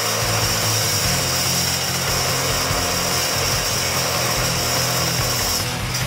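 DeWalt abrasive chop saw cutting through a 31-spline steel axle shaft: a steady high-pitched grinding whine over the motor's hum, which stops near the end.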